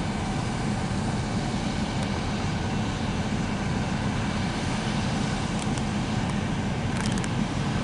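CSX switch rail grinder's diesel engines running with a steady low rumble, with a few light clicks near the end.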